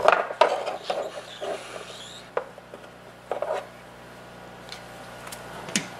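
Light clicks, taps and rubbing as a 3D-printed plastic extruder body fitted with small steel ball bearings is picked up and handled on a workbench, with a few sharp taps scattered through.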